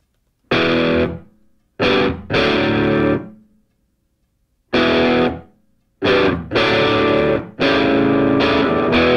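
Intro music of distorted electric guitar chords, struck in short bursts that ring and then stop, with brief silent gaps between them.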